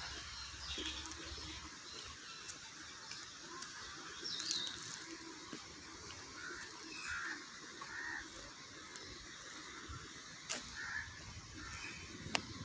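Faint outdoor ambience with scattered short bird chirps, and two sharp clicks near the end.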